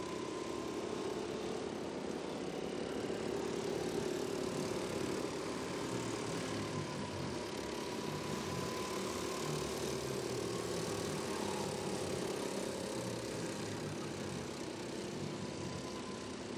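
Go-kart engines running around the circuit, a steady engine drone whose pitch slowly rises and falls as the karts accelerate and lift through the turns.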